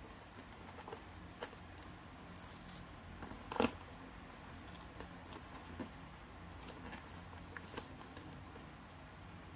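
Hands working open a cardboard toy box: faint scrapes and rustles of the card flaps, with one louder scrape about three and a half seconds in.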